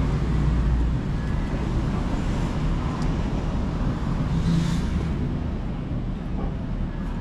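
Steady low rumble of street traffic, with a brief louder swell about four and a half seconds in.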